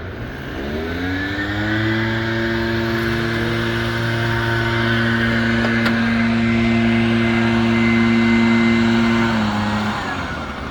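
Gas-powered leaf blower engine revving up to full throttle, holding a steady high pitch for several seconds, then throttling back near the end.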